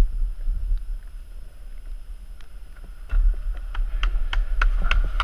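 Chairlift running into its station: low rumble with wind on the microphone, then from about three seconds in a run of sharp clacks, about three a second, as the chair passes over the station's cable wheels.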